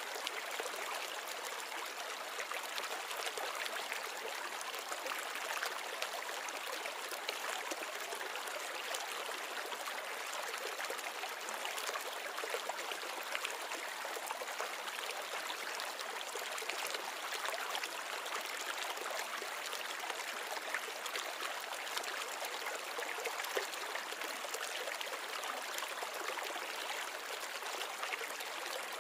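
Steady trickling, bubbling water from a small bowl reef aquarium's water circulation, with fine crackle all through.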